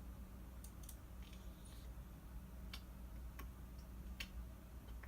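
A few faint, irregular clicks of a computer mouse, about six in all, over a low steady electrical hum.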